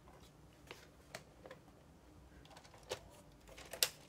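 Light plastic clicks from a LEGO brick-built typewriter as its keys and loose space bar are handled and pressed: about half a dozen separate clicks at uneven intervals, the sharpest near the end.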